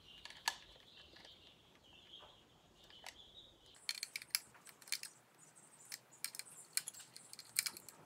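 Scattered light clicks and taps of a screwdriver and a plastic smart-switch plate being handled while it is wired in, coming thicker in the second half.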